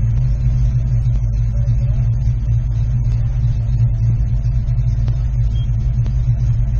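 Car engine idling steadily, an even low rumble heard from inside the cabin.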